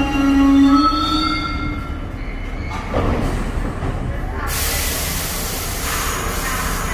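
R62A subway train on the 1 line coming to a stop: high brake and wheel squeal fades out over the first couple of seconds, then a clunk. A long hiss of air follows from about halfway through.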